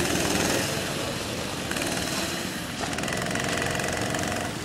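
Go-kart engines running on the track, with a steady engine note standing out over the second half.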